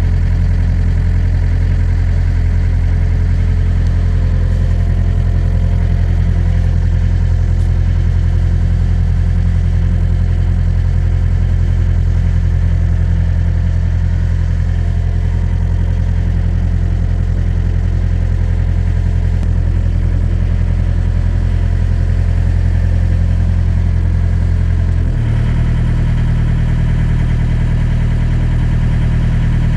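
A heavy machine's engine running steadily at idle, stepping up slightly in pitch about 25 seconds in.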